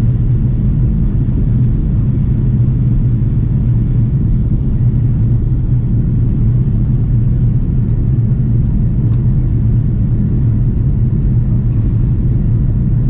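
Steady low rumble of an Airbus airliner's cabin in flight: engine and airflow noise heard from a passenger seat.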